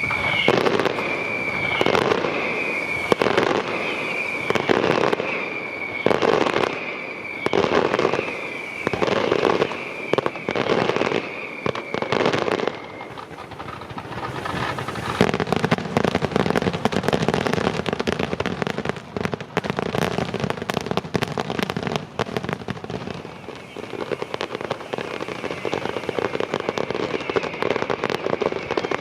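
Aerial fireworks display: a run of bangs about one a second, each with a short falling whistle, for roughly the first half, then a dense, continuous crackling of rapid small pops.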